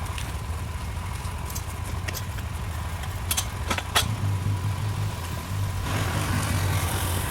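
An engine idling steadily, with a few sharp clicks about three and four seconds in and a rushing noise joining near the end.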